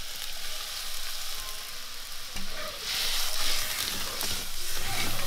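Hot tempering oil with dried red chillies and curry leaves sizzling as a thin white liquid is poured into an aluminium pan, then a ladle stirring the pan. The sizzle grows louder about three seconds in.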